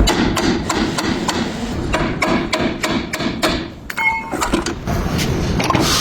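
Hammer striking metal in quick, irregular blows, a few a second, with a short pause and a brief metallic ring about two-thirds through.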